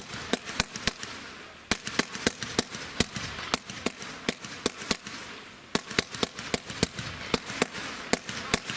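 Fireworks going off: a quick string of sharp bangs, about three or four a second, over a crackling hiss.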